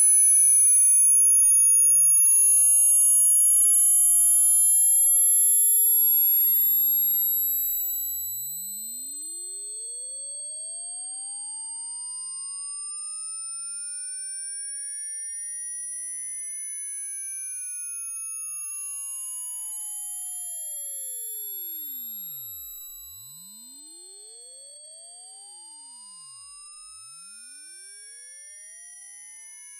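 Hearing-test sine tone, a single high pure whistle slowly rising in pitch from about 10 kHz toward 15 kHz. It gets clearly quieter a little over two-thirds of the way through.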